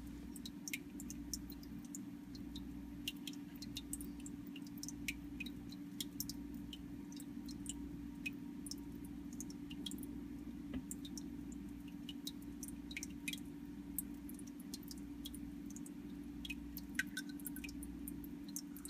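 Steady low hum of an aquarium pump with a slow throb underneath, and many faint scattered ticks and drips of water.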